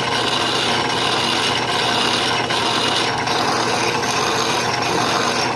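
Metal lathe boring out a drilled hole in a steel block held in a four-jaw chuck: the boring bar cutting steel makes a steady scraping, rasping noise, with faint ticks now and then, during the first of two boring passes.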